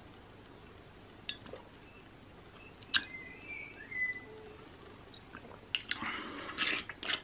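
Drinking grape soju straight from a glass bottle at close range: faint swallows and a few small clicks, a brief high-pitched gurgle from the bottle about three seconds in, then a breathy exhale near the end.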